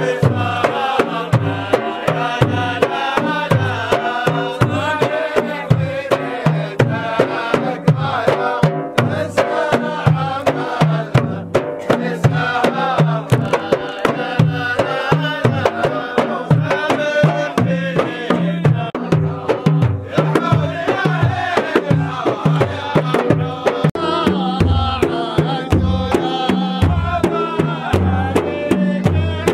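Traditional Saudi music: large frame drums struck by hand in a steady, repeating beat, with a group of men singing over them.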